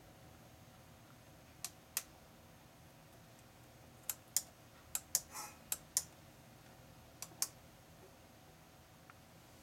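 About eleven sharp clicks in irregular pairs and small groups over a faint hiss, ending about three-quarters of the way through: the push buttons of a homemade Arduino heater controller being pressed to step through its display menus.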